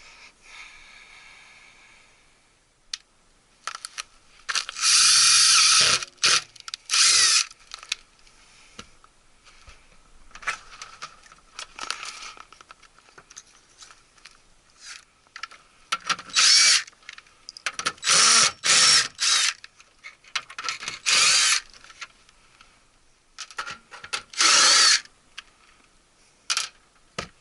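Power drill running in about eight short bursts, each a second or two long, with quieter handling noises between them.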